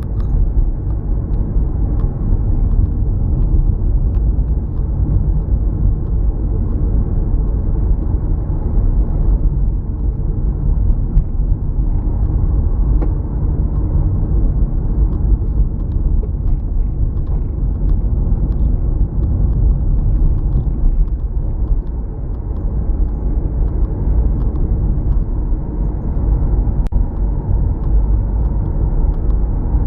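A car driving: a steady, deep rumble of road and engine noise with no change in pace.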